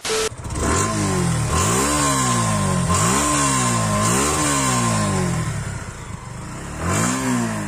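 Suzuki Gixxer SF 150's single-cylinder four-stroke engine being revved in throttle blips. It rises and falls four times, three close together and then one more near the end, dropping back toward idle in between.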